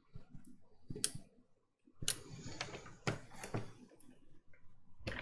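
Plastic clicks and clatter as the Alienware M17x laptop chassis is handled and turned over. There is a single click about a second in, a busy run of knocks and rattles in the middle, and a sharp click near the end.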